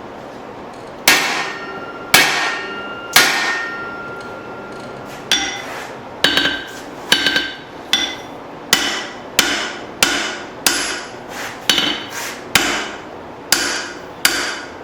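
Blacksmith's hand hammer striking hot steel on the anvil while a drift is driven into the eye of a cross peen hammer head being forged. Three heavy blows about a second apart, a short pause, then a steady run of quicker blows about two a second, some doubled by the hammer's bounce, each with a short metallic ring.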